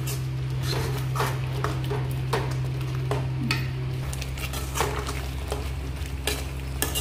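A metal spoon stirring thick, oily masala paste in a steel kadai, with repeated irregular scrapes and clicks against the pan as the masala sizzles, over a steady low hum.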